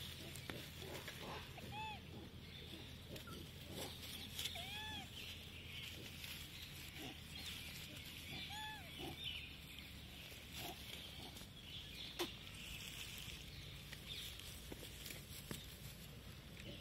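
Rhesus macaques giving short, clear calls that rise and fall in pitch, three of them in the first half, over a faint steady background hiss.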